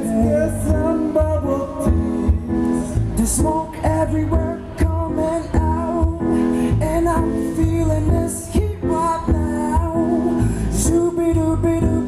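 Live band music: electric guitar and keyboard with a sung melody over a steady low beat.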